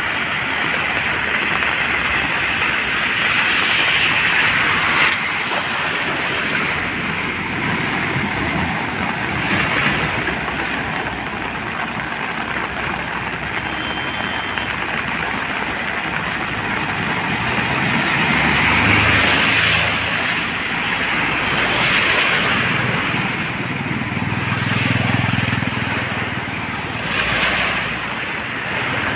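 Vehicles driving through a flooded road, their engines running under a steady rushing splash of water, with a deeper engine hum growing louder for several seconds past the middle as a heavier vehicle comes through.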